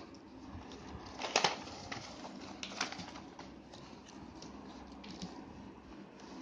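Light handling of a sheet of paper and a pen: a few soft rustles and taps, the sharpest about a second and a half in, over a quiet room.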